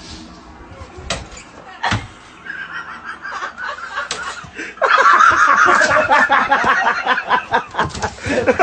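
A person laughing loudly in rapid pulses, starting suddenly about five seconds in, after a few sharp knocks.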